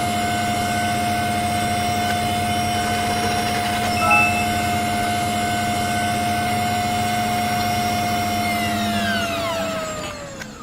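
A loud, steady machine drone with one strong held pitch, which winds down, every pitch gliding lower together, about nine seconds in.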